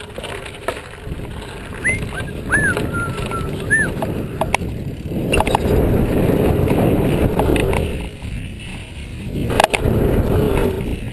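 Dirt jump bike rolling down a dirt track: wind rush and tyre rumble over the dirt, loudest from about five seconds in, with sharp clacks from the bike over bumps, the strongest near the end. Near the start a few short whistle-like tones rise and fall.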